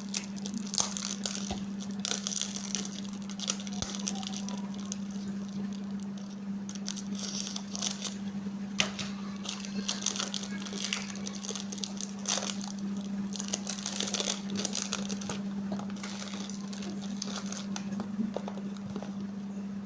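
Gift wrapping and packaging being unwrapped by hand: irregular crinkling and tearing of paper in a small room, over a steady low hum.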